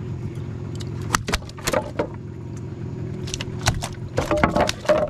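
Boat's outboard motor running steadily, with several sharp knocks and rattles over it, bunched toward the end.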